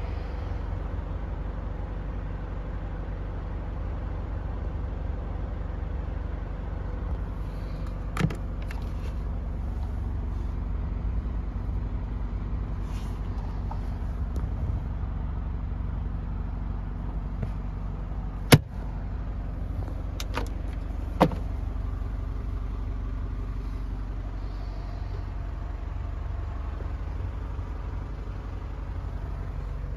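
Nissan Elgrand's ZD30DD 3.0-litre diesel idling steadily, heard from inside the van as a low rumble and hum. It is broken by a few sharp clicks of cabinet doors or latches, the loudest about halfway through.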